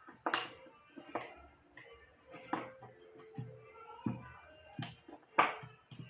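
A handful of sharp clicks and knocks, about five, the loudest near the end, as the plastic parts of a Mondial hair dryer are handled and fitted together. Faint music plays under them.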